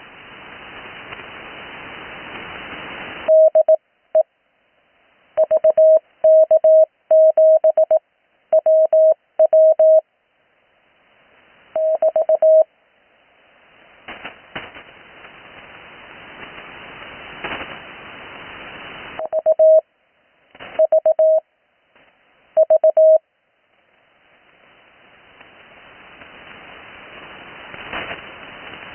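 Slow Morse code (CW) on an 80-metre amateur radio transceiver: one steady mid-pitched tone keyed on and off in dots and dashes. In the pauses between groups, band hiss fills in and swells.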